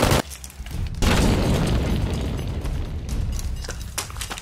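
A loud boom about a second in, heavy in the low end and fading slowly over the next few seconds, like an explosion sound effect. A few sharp clicks follow near the end.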